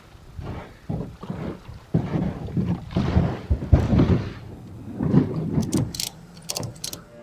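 Wilderness Systems Recon 120 HD kayak moving through shallow river water: irregular thuds, rumbling scrapes and water swishes against the hull, with a run of sharp clicks near the end.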